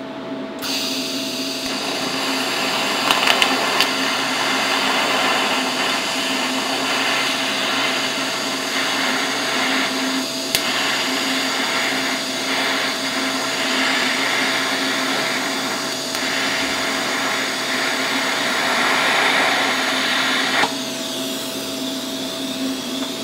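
TIG welding arc on steel: a steady hiss as the spider gears of an open differential are welded together to lock it. The arc is struck about a second in and cut off suddenly near the end.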